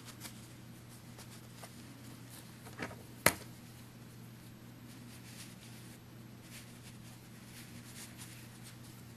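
Faint soft rustling of fingers handling cotton-ball fluff and fabric while stuffing a small pillow, over a steady low hum, with a single sharp tap about three seconds in.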